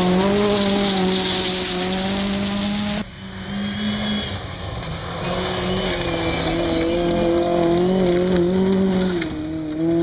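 Small-engined 1400cc rally cars running hard on a gravel stage. First one car pulls away at high revs, with a strong hiss over the engine. After an abrupt cut about three seconds in, another car comes closer, its engine note rising and dipping as it changes gear and lifts off.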